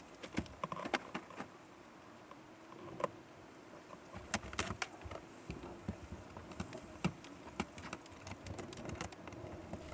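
Thin RV ceiling paperboard being pulled down by hand: irregular sharp cracks and snaps as the board tears loose, with a quieter pause partway through.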